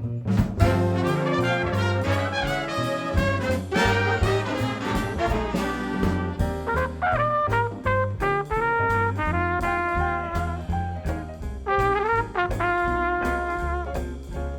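Big band jazz playing a swing tune: trumpet and trombone sections holding bright chords over walking bass and drums.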